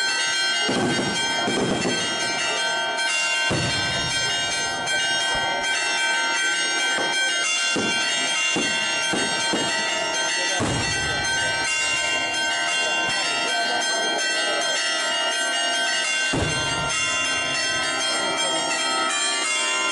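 Church bells pealing continuously, with crowd voices underneath.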